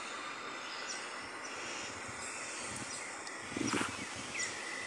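Steady outdoor background noise, with a short louder rumble about three and a half seconds in.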